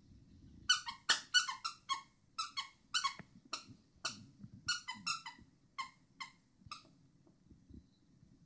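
A plush squeaky toy squeaked over and over as a Jack Russell terrier chomps on it: short, high squeaks in quick succession, about two or three a second. They stop about seven seconds in.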